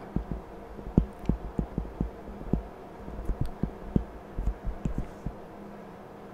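Stylus strokes and taps on a tablet screen during handwriting: irregular dull low knocks, several a second, over a faint steady hum.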